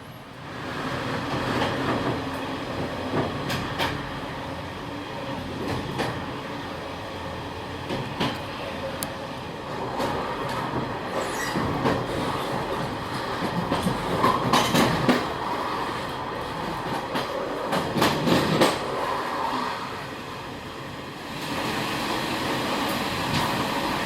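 Old locomotive-hauled passenger coaches of a Taiwan Railways ordinary train running on the line, with a steady rumble and irregular clicks of the wheels over rail joints. The train grows louder twice past the middle, eases briefly, then rises again near the end.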